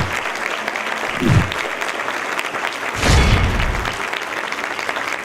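Audience applauding, with short deep thuds that drop in pitch, one about a second in and a heavier one about three seconds in.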